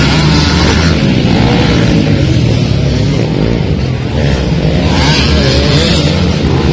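Several dirt bike engines running hard at once, loud and continuous, their revs rising and falling as the riders accelerate and ease off.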